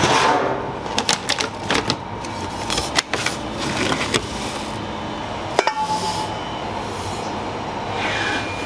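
Stainless steel kitchenware clattering: a string of sharp metal knocks and clicks as sheet pans and a metal scoop are handled, with one sharp clank about two-thirds through that rings briefly. A steady low hum runs underneath.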